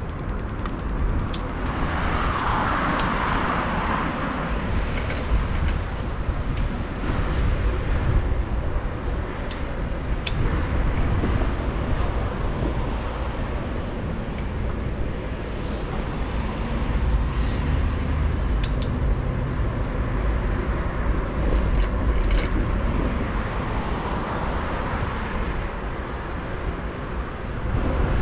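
City street traffic heard from a moving bicycle, a steady mix of passing cars and road noise, with low wind rumble on the microphone. The noise swells about three seconds in, and a few brief clicks and ticks sound through it.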